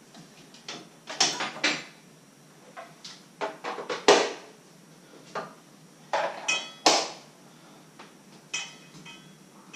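Handling of a hand mixer at a wooden counter: a string of irregular sharp knocks and clicks, with a few short metallic clinks that ring briefly. The mixer's motor is not running.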